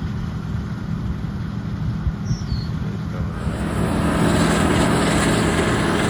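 Large diesel farm machinery running steadily with a constant low hum; about three seconds in, a louder rushing noise comes in and stays.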